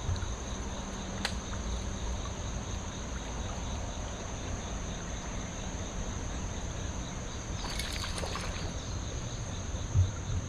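Steady high-pitched insect drone, with a few low thumps and a brief splashy rustle about eight seconds in.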